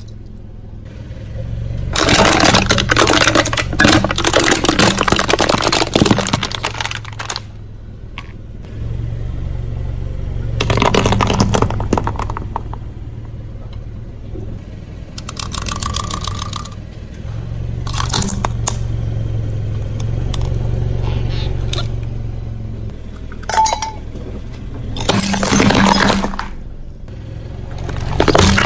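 A car's tyres rolling over and crushing objects: four bouts of crackling and breaking, the first and longest lasting about five seconds, over the low, steady running of the car's engine.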